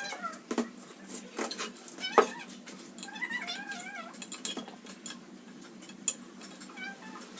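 Irregular sharp knocks and clicks, the loudest about two seconds in. A wavering, animal-like call runs from about three to four and a half seconds in.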